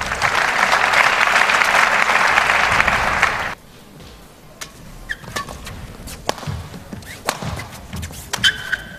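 Arena crowd applauding, cut off suddenly about three and a half seconds in. Then a badminton rally: sharp racket strikes on the shuttlecock and brief squeaks of court shoes on the floor.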